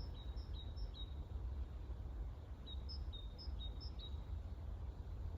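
A small songbird calling in a repeated two-note phrase, a short high note followed by a slightly lower one, about two phrases a second, in two runs with a pause of about a second and a half between them. A steady low rumble lies underneath.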